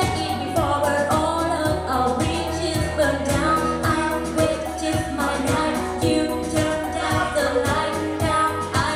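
Live singing over acoustic guitar accompaniment, with a steady rhythm throughout.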